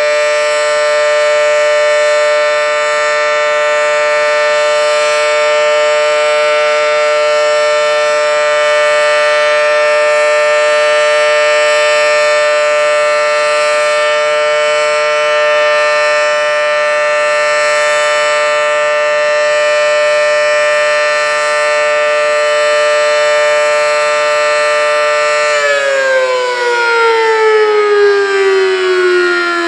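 Federal Signal Model 7T outdoor warning siren sounding loudly on a steady held tone during a test. About 26 seconds in, the pitch begins to fall steadily as the siren winds down.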